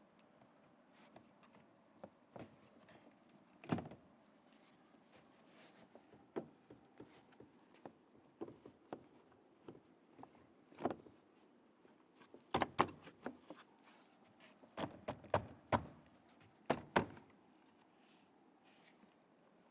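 Interior door trim panel being worked down onto a pickup's front door: scattered light knocks, rubs and clicks of the panel against the door. A run of sharper knocks comes about two-thirds of the way through.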